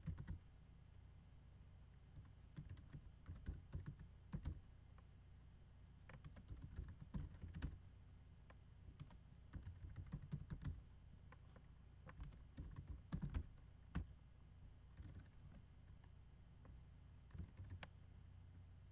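Computer keyboard typing: faint runs of keystroke clicks broken by short pauses as a command is typed, over a low steady hum.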